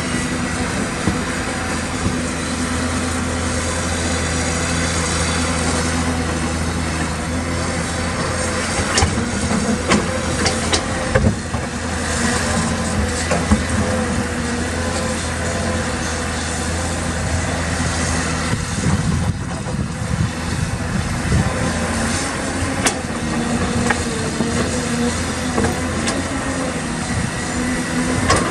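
Caterpillar 320D excavator's six-cylinder diesel engine running steadily while digging, with scattered knocks and scrapes of the bucket in rocky soil, most of them about nine to fourteen seconds in.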